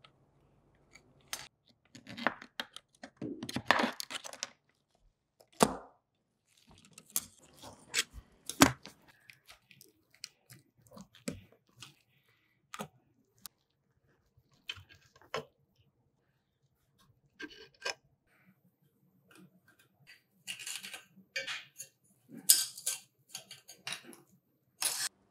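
Close-up handling sounds from a rusty diecast toy truck being taken apart: a metal pick scraping at crusted rust, then scattered clicks and scrapes of small rusty metal and plastic parts turned in gloved hands, coming in short irregular bursts with gaps between.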